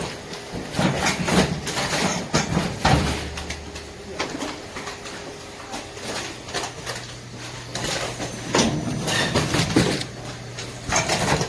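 Two-lane chili pepper packaging machine running: irregular mechanical clacks and knocks over a steady low hum.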